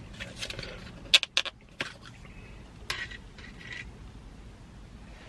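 Takeout food packaging being handled: a few sharp clicks and taps about a second in and again near three seconds, with light scraping between.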